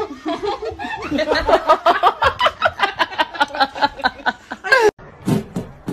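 A person laughing hard in a fast, steady run of ha-ha bursts, about five a second, that cuts off suddenly near the end.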